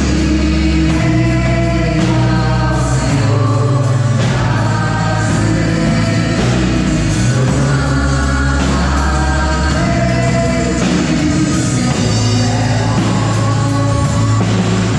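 Loud Christian worship music: singing over a band, with strong held bass notes.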